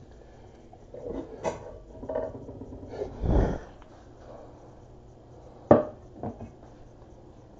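Kitchenware being handled: light knocks and clatter, a heavy thump about three seconds in, then a sharp knock just before six seconds and a smaller one after it.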